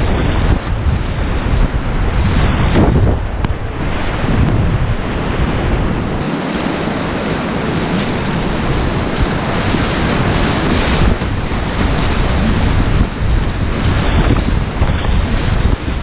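Loud whitewater rapids rushing and breaking around a kayak, with waves splashing over the bow and wind buffeting the microphone.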